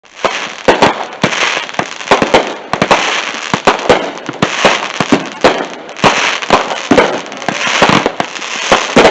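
Fireworks going off: many rapid, sharp cracks and bangs over a crackling hiss that swells and fades in repeated waves.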